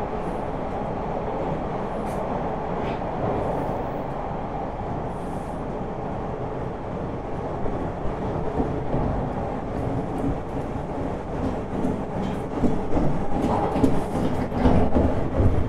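Interior noise of a TTC T1 subway car running: a steady rumble and hiss, with rattles and clicks that come more often near the end.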